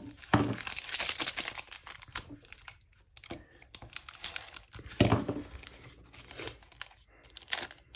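Wrapper of a Select AFL Footy Stars 2022 Prestige trading-card pack crinkling and tearing in several bursts as it is slit open with a utility knife and the cards are slid out.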